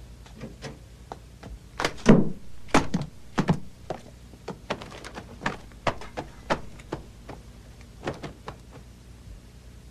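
A run of thuds, knocks and clicks, the three heaviest thuds about two, three and three and a half seconds in, with lighter clicks scattered through the rest.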